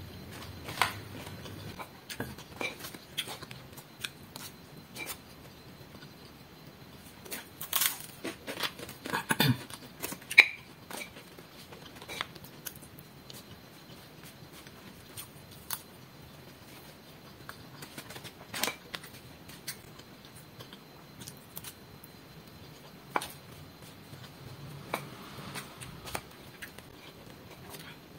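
Metal spoon scooping rice from a paper food wrapping, with scattered sharp clinks and scrapes and crinkling of the paper, busiest around the middle.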